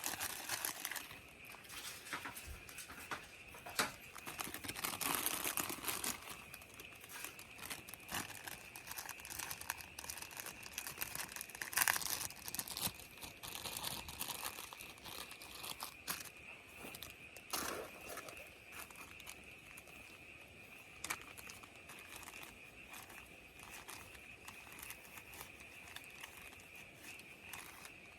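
Irregular rustling and crinkling handling noises, busiest in the first half, over a steady high-pitched insect drone.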